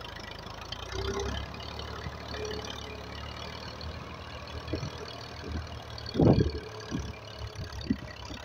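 Massey Ferguson 240 tractor's three-cylinder diesel engine running steadily under load as it pushes soil with its front blade. A brief, louder burst of low noise comes about six seconds in, with a few smaller ones around it.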